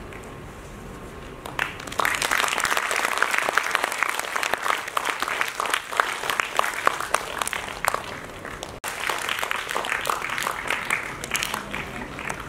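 Audience applauding. The clapping starts about a second and a half in, stops for an instant around two-thirds of the way through, and dies down near the end.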